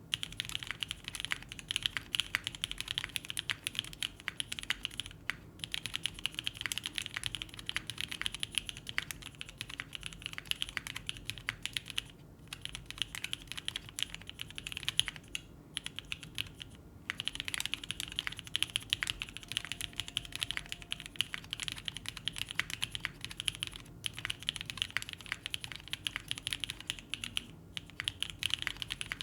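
Steady, fast typing on a SINGA Kohaku custom mechanical keyboard with an aluminium plate, GMK keycaps and lubed Black Cherry Pie switches. The keystrokes come as a dense run of clacks, broken by a few brief pauses.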